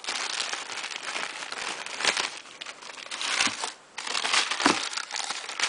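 Clear plastic zip-top bags and yellow paper bags crinkling and rustling as they are handled and pushed around in a drawer, with scattered sharp crackles. The rustling stops briefly a little under four seconds in.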